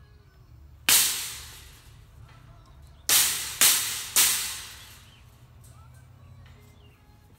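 Mallet blows seating white plastic glides into the cast foot cups of a wrought iron table: four sharp strikes, one about a second in and three in quick succession a couple of seconds later, each ringing off briefly through the iron frame.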